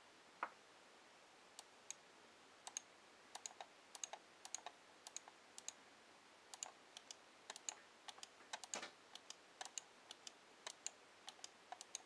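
Logitech MX mouse buttons clicking on freshly replaced Omron micro switches: faint, sharp clicks scattered irregularly, some in quick pairs. The mouse is being test-clicked after its double-click fault was repaired.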